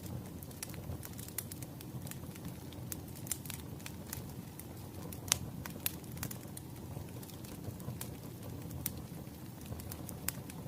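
Crackling wood-fire sound: irregular sharp pops and snaps over a low, steady rumble, one pop louder than the rest about five seconds in.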